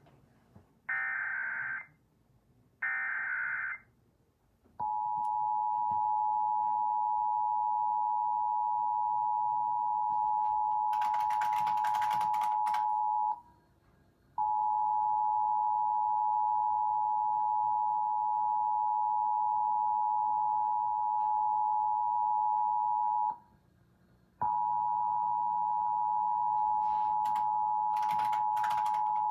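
Emergency Alert System header: the end of one short burst of SAME digital data tones and then two more, followed about a second later by the EAS two-tone attention signal (853 and 960 Hz sounded together). The attention signal is a steady dual-pitched tone that cuts out for about a second twice, with bursts of crackling noise over it near the middle and near the end.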